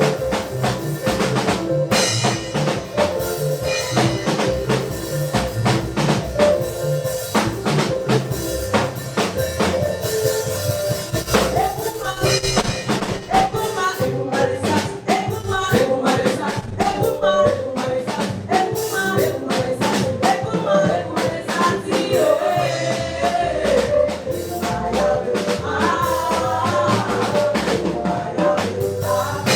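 Live gospel praise music: a drum kit keeping a steady beat over bass, with voices singing.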